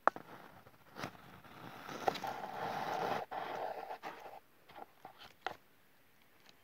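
Handling noise from a rifle being pushed out through the opening of a hunting blind: a few sharp knocks, then a scraping rustle lasting about three seconds, then a handful of short clicks.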